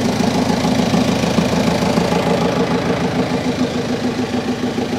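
An engine running steadily and loudly in a fishing boat's engine room, an even, rapid chugging with no change in speed.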